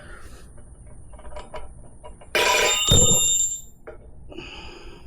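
A few light metallic clinks of hand tools, then a little over two seconds in a loud metal clang that rings on with several high tones for over a second, with a heavy thump in the middle, as a steel tool strikes or lands on metal.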